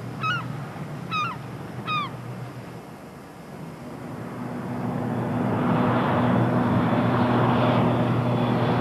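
Twin-engine propeller plane approaching overhead: a droning hum that grows steadily louder from about four seconds in. A few short bird calls come early, before it.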